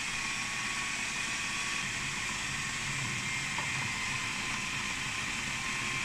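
Food processor motor running steadily, mixing flour and fat crumb with a splash of cold water into pastry dough.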